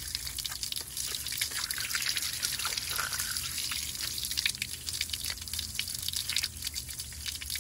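Hose water streaming out of the slotted cooling-water intake holes on an OMC Cobra stern drive's lower unit and splashing steadily. The intake is being flushed to clear out sand and small rocks.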